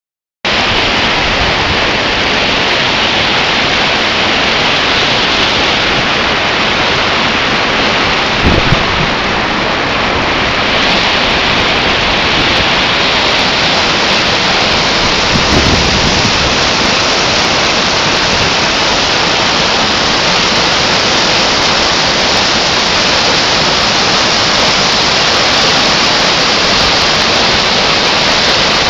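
Waterfall rushing in a loud, steady roar of falling water. Two brief low thumps cut through it, about a third and about halfway through.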